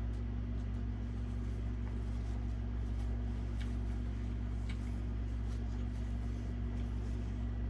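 A steady low hum with a constant tone, broken by a few faint clicks.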